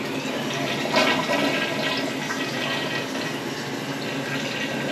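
A toilet flushing: water rushing into and swirling around the bowl, with the loudest surge about a second in.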